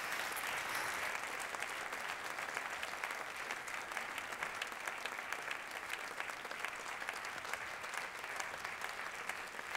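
Audience applauding, a dense patter of many clapping hands, easing off slightly near the end.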